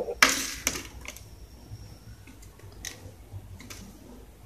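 Handling noise from a soldering iron being turned over in the hands: a short rustle near the start, then a few small, sparse clicks of its plastic handle and cord.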